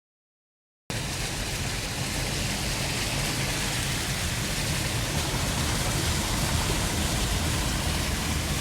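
Heavy storm rain and the road noise of a car driving through flooded streets: a steady hiss with a low rumble underneath, cutting in abruptly about a second in after a brief dropout.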